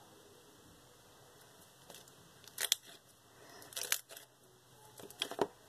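Bubbly slime being stretched and squished by hand, giving a few short sharp pops and crackles from about halfway through.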